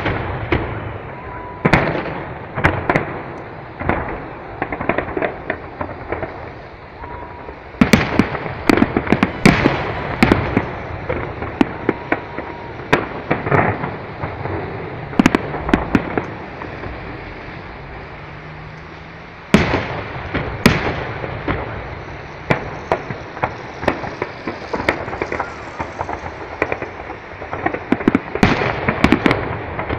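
Fireworks display: aerial shells bursting overhead in rapid clusters of bangs and crackling. The loudest volleys come about eight seconds in and again about twenty seconds in.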